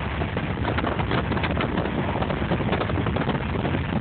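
Steady rush of a car being driven, heard from inside the cabin, with a dense scatter of small sharp ticks and taps through the middle.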